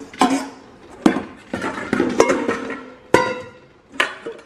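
Nested stainless steel mixing bowls clanking against each other as one is pulled from the stack, a series of metal knocks each with a brief ring.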